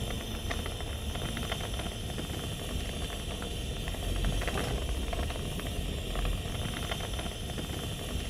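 Gas bench torch burning with a steady hiss and a low rumble as glass tubing is heated in its flame, with many faint scattered ticks.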